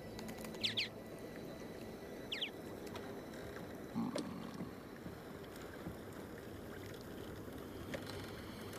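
Soft sea ambience: water around a small fishing boat. Two short, high falling chirps come about one and two and a half seconds in, and a single knock about four seconds in.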